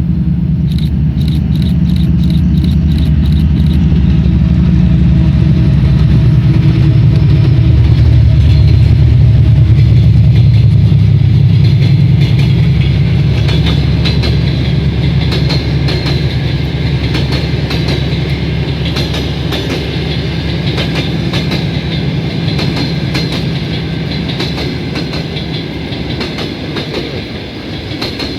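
2TE10UT twin-section diesel locomotive passing with its two-stroke diesel engines running loud, loudest about ten seconds in. Then the passenger coaches roll by with a steady clickety-clack of wheels over rail joints and some wheel squeal, slowly fading toward the end.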